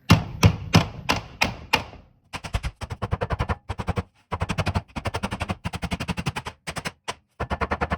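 Raw chicken being pounded flat with a makeshift tenderizer: about six separate blows, then fast runs of blows, about seven a second, in three bursts with short breaks between.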